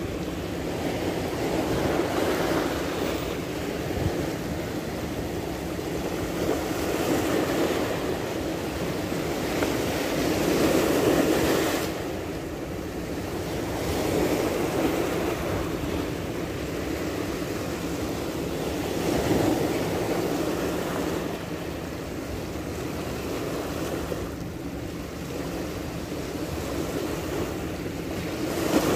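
Sea waves washing and wind blowing on the microphone, a steady rush of noise that swells and eases every few seconds.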